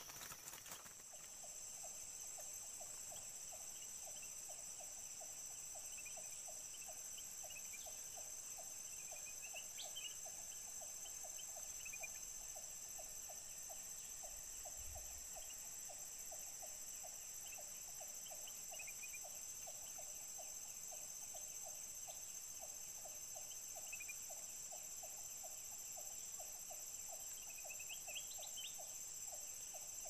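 Tropical forest ambience with a steady high insect drone, a low call repeating evenly about three times a second, and scattered short bird chirps.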